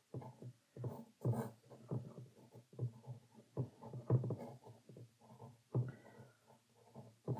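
Pencil drawing on rough watercolour paper: an irregular run of short, faint scratching strokes, several a second.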